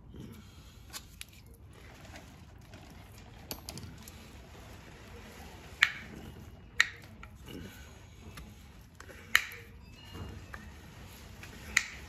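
Sharp metal clicks and light clinks as a brake caliper bracket and brake pads are handled while the pad slots are greased. There are a few faint clicks, then four louder ones spaced one to two and a half seconds apart.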